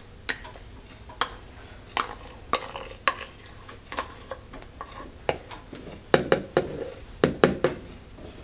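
A metal spoon scraping and tapping against a small dish and a plastic blender cup as thick Nutella spread is spooned in: a run of irregular clicks and short scrapes, busiest near the end.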